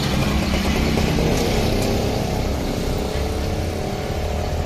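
Low, steady rumble of a motor vehicle engine running nearby, its pitch creeping slightly upward in the second half. Under it is a steady hiss of pav vadas deep-frying in a wok of oil.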